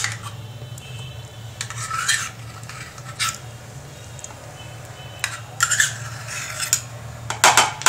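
Metal spoon scraping and clinking against a stainless steel measuring cup and the bowl as thick mayonnaise is scooped out, in several separate short clinks and scrapes. A steady low hum runs underneath.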